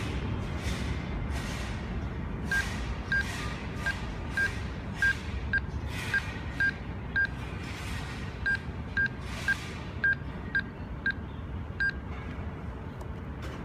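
Handheld Android barcode scanner beeping once for each barcode it reads: about sixteen short, high single-pitched beeps roughly half a second apart, with a brief pause about halfway through.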